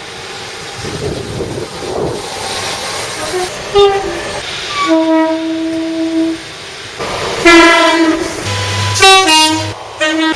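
Train's two-tone horn sounding several times: short high-low two-note blasts and one long single low note about five seconds in. It follows a few seconds of noise from the running train.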